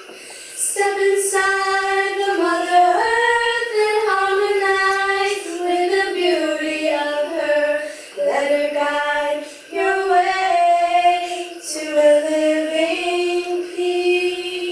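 Children singing a slow song in long, held notes, with a couple of short breaks for breath.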